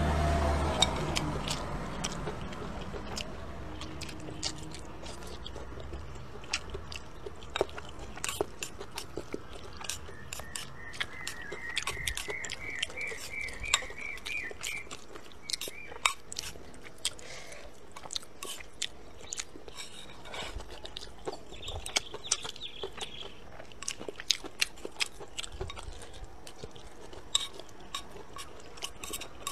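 Close-up chewing and mouth sounds of someone eating rice with stir-fried green chili peppers, with frequent small sharp clicks throughout as chopsticks tap the bowl.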